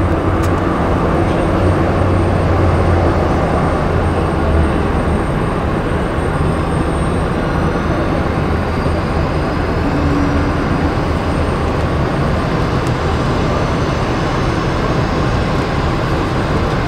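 Airbus A380's four Engine Alliance GP7200 turbofans running at high thrust as the jet rolls down the runway: a loud, steady jet roar with a deep rumble that eases after the first few seconds, and a faint rising whine in the middle.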